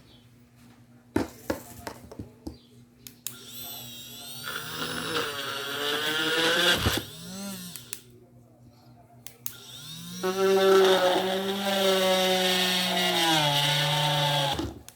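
Homemade hand drill with an RS755 DC motor, run twice. First come a few clicks. It then spins up with a rising whine about 3 s in and cuts off about 7 s in. It starts again about 10 s in with a steady, louder whine that drops in pitch near the end before stopping.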